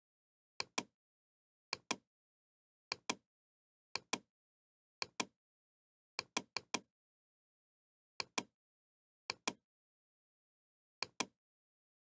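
Computer mouse button clicking: quick press-and-release double clicks about once a second, with a faster flurry of clicks about six seconds in.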